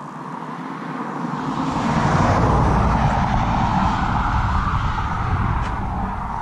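A car passing on the road, its tyre and engine noise swelling to a peak about two seconds in and then slowly fading away.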